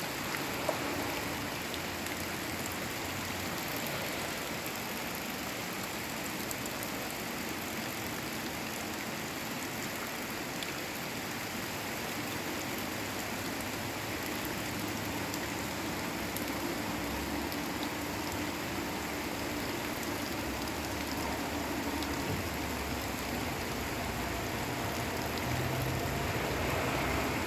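Steady hiss of rain falling, with a low rumble joining in during the second half.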